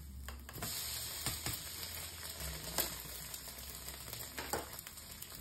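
Slices of raisin-bread French toast sizzling in a frying pan, a steady crackle with a few sharp clicks scattered through it.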